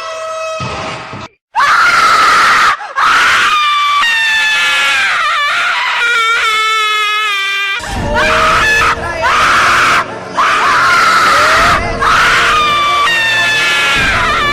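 Ghost-scream horror sound effect: a run of high-pitched, wavering shrieks, each a second or two long with short breaks between them. A low, dense rumbling bed comes in underneath about halfway through.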